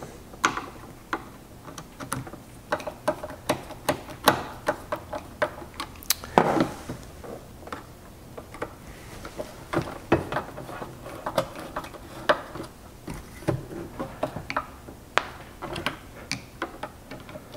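Hand screwdriver turning screws into the plastic control valve housing of an Aquamaster water softener, reattaching the brine piston assembly: a run of small irregular clicks and ticks, a few a second.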